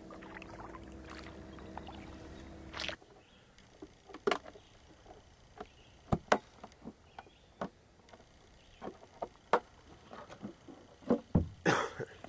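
Kayak paddling: irregular sharp knocks and short splashes as the paddle dips and taps against the hull. For about the first three seconds a steady hum runs underneath, then stops abruptly.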